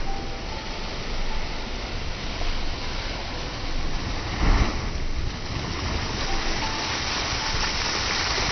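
Ocean surf breaking and washing up onto a sandy beach, with a steady rush of water. A wave breaks with a louder surge about halfway through, and a hissing wash of foam rises near the end.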